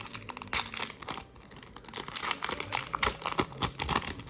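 Trading cards being handled and flipped through by hand: a quick, uneven run of soft clicks and paper rustles.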